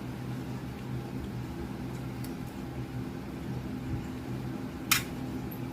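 Steady low electrical hum in a small room, with one sharp click about five seconds in.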